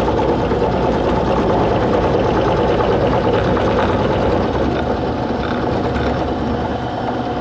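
Mini milling machine running, its cobalt end mill cutting a hard iron workpiece under oil with a steady whining hum, a little quieter after about four seconds. The iron machines roughly, which makes the cut hard going.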